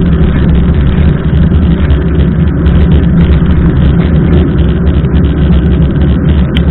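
Steady, loud wind rumble and road noise on a bike-mounted camera while a mountain bike rides along a wet road in heavy rain.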